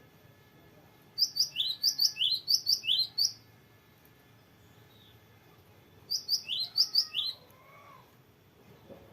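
Cinereous tit singing: two bouts of fast, repeated sharp whistled notes, the first lasting about two seconds from a second in, the second shorter, around six seconds in.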